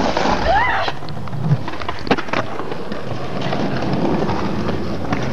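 Skateboard wheels rolling on concrete with a steady rumble, broken by a few sharp clacks of the board about one, two and five seconds in.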